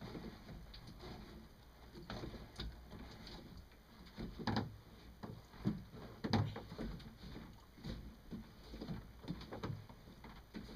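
Home-made aluminium and stainless pop-up kayak sail being lowered and wrapped around its mast: scattered knocks, rattles and cloth rustling, with the loudest bumps about four and a half and six seconds in.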